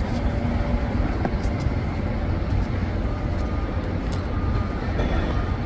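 Steady low engine rumble with a few faint high clicks.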